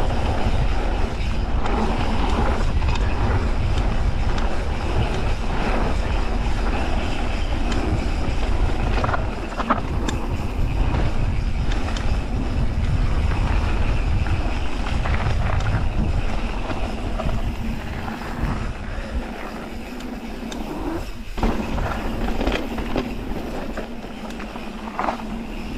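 Mountain bike rolling fast down a loose gravel and dirt trail: tyres crunching and the bike rattling, with a few sharp knocks over bumps and stones, under a heavy wind rumble on the handlebar microphone. It eases off somewhat after the middle as the pace drops.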